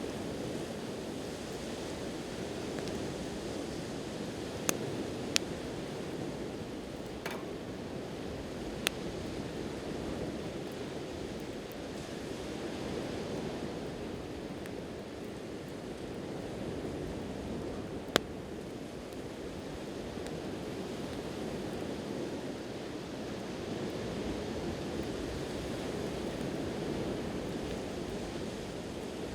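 Sea waves washing on the shore, a steady rushing sound that swells and eases, with a wood campfire crackling: a handful of sharp pops, the loudest about eighteen seconds in.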